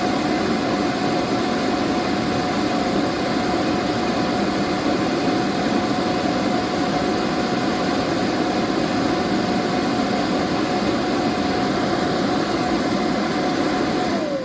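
Electric bounce-house inflator blower running steadily: a loud rush of air with a constant motor whine.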